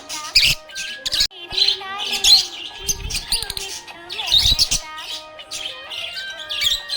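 Budgerigar chirping and warbling in quick, repeated short calls over background music with held notes.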